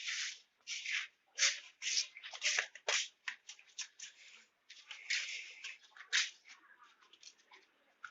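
Irregular rustling and brushing noises, a quick uneven series of short scrapes and swishes.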